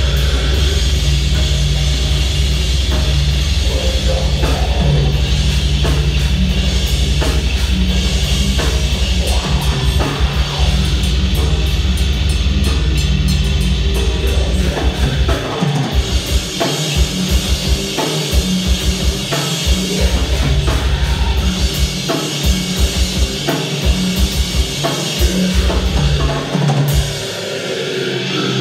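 Metal band playing live, loud, with electric guitar and drum kit. From about halfway through, the low end breaks into choppy stop-start hits with short gaps between them.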